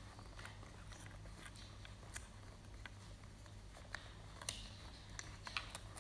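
Faint scattered clicks, taps and rustles of hands handling a ball-jointed doll and its clothes, over a steady low hum.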